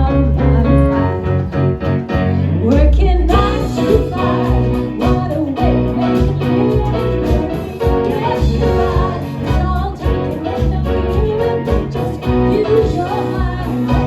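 A live band playing a song with a singer and a steady beat.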